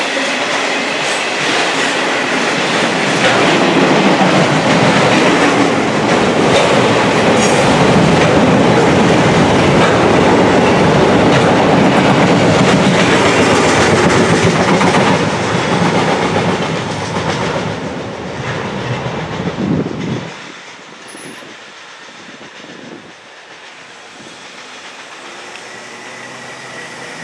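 Autorack freight cars rolling past on steel rails, a steady loud rumble of wheels with clickety-clack over the rail joints. About twenty seconds in, the last car passes and the sound drops sharply to a faint receding rumble.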